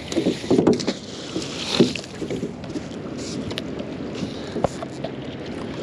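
Choppy river water slapping against a small boat's hull, with wind on the microphone, a few knocks and clatters in the first two seconds and one sharp knock near the end.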